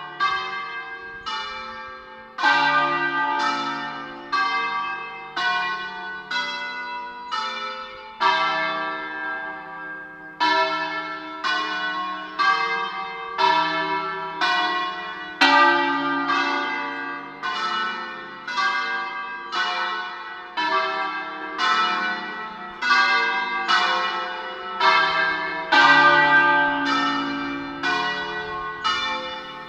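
Church tower bells ringing a peal: single strokes one after another at different pitches, about one a second, each note ringing on under the next.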